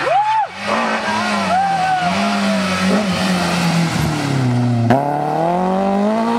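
BMW E30 M3 rally car engine under hard throttle. The revs drop about four seconds in, then climb steadily as it accelerates away.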